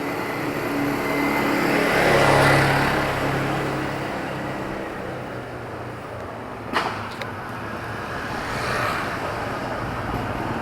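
Street traffic: a motor vehicle's engine passes by, loudest about two and a half seconds in. There is a sharp click near the middle, and another vehicle comes by near the end.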